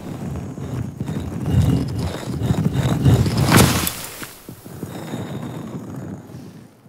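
Sound effect of a stone staircase grinding and rumbling out of sand below a giant pyramid statue, with sand pouring off in a dusty cloud. The rumble builds, peaks with a sharp hit about three and a half seconds in, then fades.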